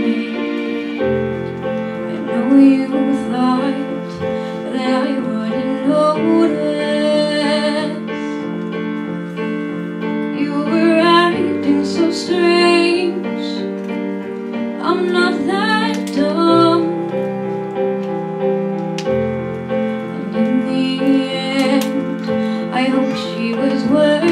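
A woman singing into a microphone over piano accompaniment of long held chords that change every few seconds.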